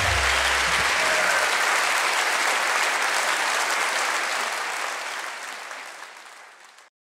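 Concert audience applauding after a live band finishes a song, the last low chord dying away in the first second. The applause fades from about halfway through and cuts off just before the end.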